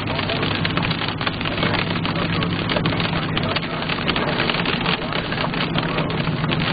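Rain hitting the windshield and roof of a moving car, heard from inside the cabin, over a steady low drone from the car's engine and tyres on the wet road.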